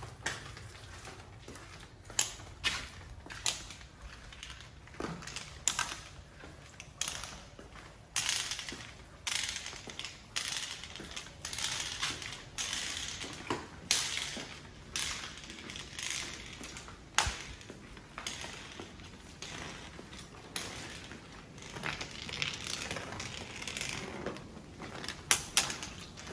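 Footsteps on a tiled floor at a walking pace, about two steps a second, some louder than others.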